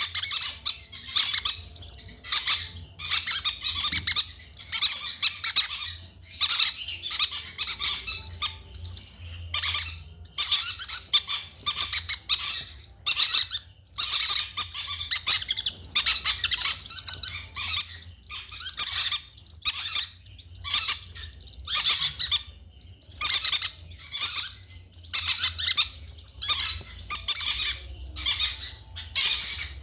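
Sun conure calling over and over: a dense run of short, high-pitched calls with brief pauses between them.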